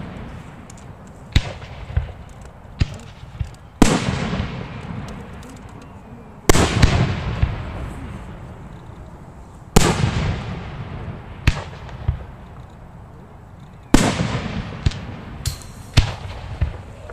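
Aerial firework shells bursting at close range: four heavy booms a few seconds apart, each trailing off in a long rumbling echo, with smaller sharp cracks between them.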